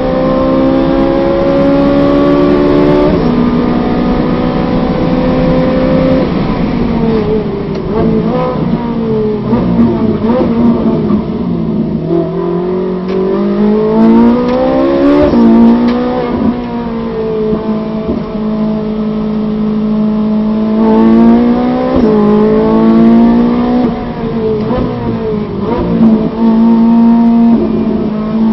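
Ferrari 458 Challenge's naturally aspirated V8 racing flat out, heard from inside the cockpit. It revs up and upshifts about three seconds in. Around the middle it drops through several gears with blips of throttle as the car brakes hard for a slow corner, then climbs again as it accelerates out, shifting up again later on.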